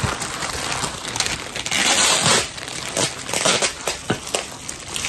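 Thin plastic bag crinkling and rustling as it is handled and pulled open, with a louder burst of crackling about two seconds in.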